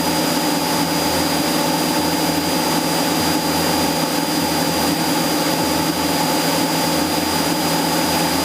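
Cessna 172SP's four-cylinder Lycoming IO-360 engine and propeller droning steadily in flight, heard inside the cabin, with a thin steady high whine over it.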